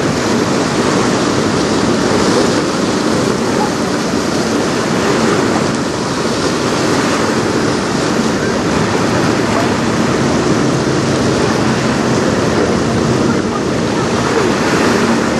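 Strong wind buffeting the microphone over choppy river water splashing, a loud steady rush with a faint low hum underneath.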